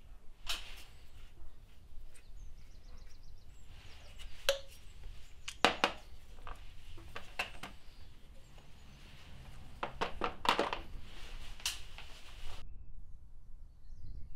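Light clicks and knocks of a car water pump and its plastic push-fit coolant pipe being handled and fitted together, a few sharper taps among them, going quiet near the end.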